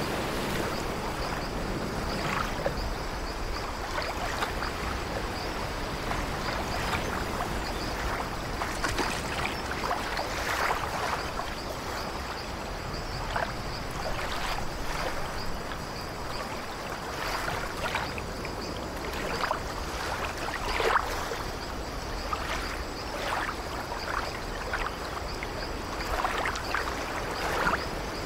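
Small waves breaking and washing up a pebble beach: steady surf with frequent short splashes and gurgling as the water runs back over the stones.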